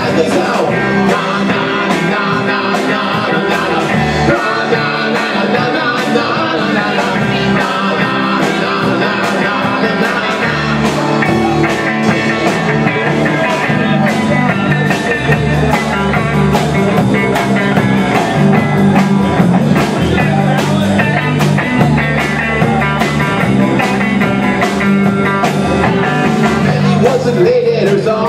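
A live rock band playing loud electric guitar, bass guitar and drums, with a steady drum beat.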